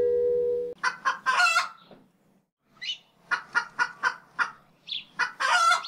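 Closing music stops less than a second in, then a chicken clucks: a couple of calls, a run of about five short clucks, and a longer drawn-out cluck near the end, a chicken sound tag for a production logo.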